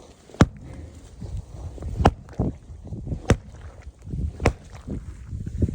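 Sharp strikes on frozen water, about one every second, breaking a hole in the ice so the pigs can drink, with scuffing and shuffling between blows.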